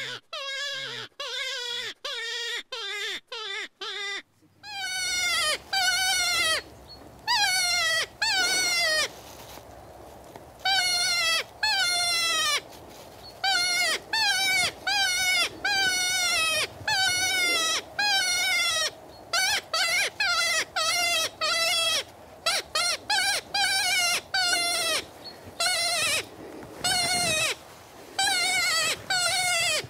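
Predator call luring a fox: a string of short, quavering, bleat-like cries, one or two a second, in runs with short pauses between them. About four seconds in, the cries become louder and longer, over a steady background hiss.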